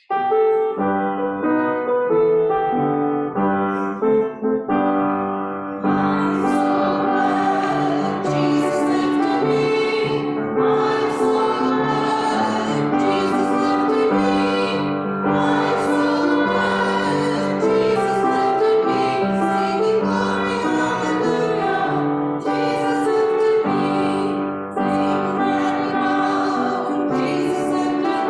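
Grand piano playing a hymn introduction, then a congregation singing the hymn with piano accompaniment from about six seconds in.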